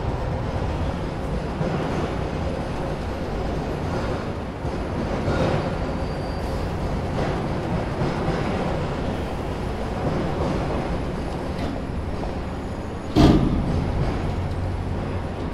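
Steady, rumbling noise of heavy vehicles and city traffic, rising and falling, with one loud bang about thirteen seconds in that rings out briefly.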